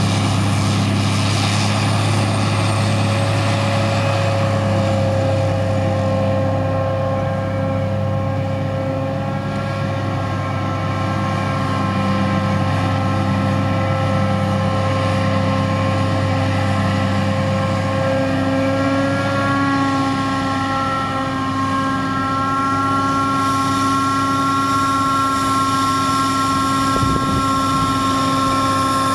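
John Deere 8800i forage harvester chopping whole-crop rye: a steady heavy engine drone under load with several high whining tones from the chopping machinery, along with the tractor running alongside. The whine steps up slightly in pitch about two-thirds of the way through.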